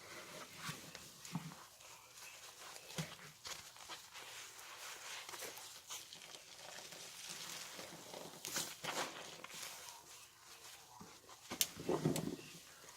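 Laundry-soap-soaked sponge being squeezed by hand: irregular soft squishes and fine crackles, with a louder squelch near the end.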